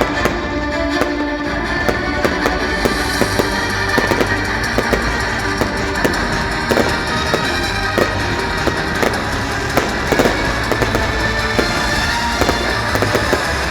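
Fireworks going off in a rapid, irregular series of bangs and crackles, with music playing throughout.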